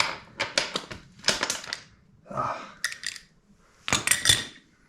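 Metal clinking and scraping in several short bursts as a badly stuck motorcycle axle is worked loose, its threads worn and pulled out.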